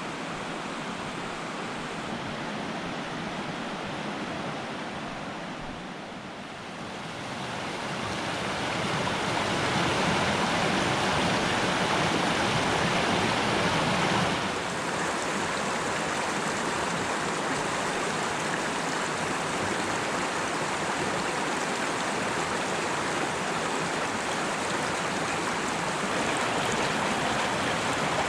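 Mountain stream rushing over rocks: a steady wash of flowing water. It grows louder several seconds in, then drops slightly and changes tone about halfway through.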